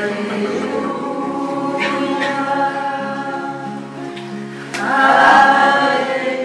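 Christian worship music with a choir singing long held notes. It swells louder about five seconds in.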